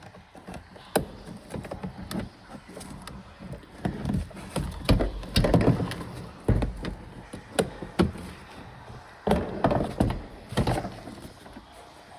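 Irregular knocks, clicks and thuds as a car door's inner cover panel is pressed and fitted back onto the door.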